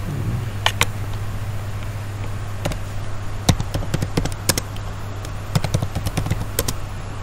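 Computer keyboard keys clicking in irregular strokes as a phrase is typed, over a steady low hum.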